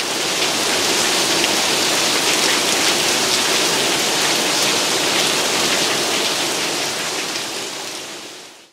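Rain falling steadily on a wet street: a dense, even hiss of drops, fading out near the end.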